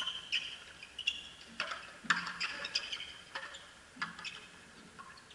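Frontenis rally: a small rubber ball smacked by strung racquets and rebounding off the fronton wall, in a quick run of sharp, echoing smacks about every half second.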